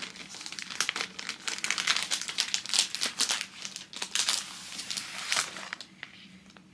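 Plastic packaging crinkling and rustling in irregular crackles as a new iPad case is pulled out of it, dying away about six seconds in.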